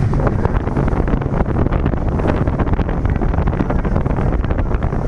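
Wind buffeting the microphone aboard a small boat under way: a loud, gusty rumble and rush.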